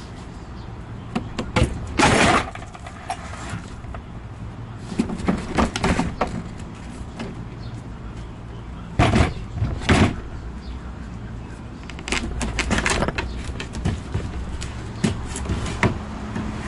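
Knocks, bangs and clatter of a kitchen cabinet box being pulled apart by hand, its panels knocking and scraping as they come loose, over a steady low hum. The loudest bangs come about two seconds in and around nine and ten seconds in.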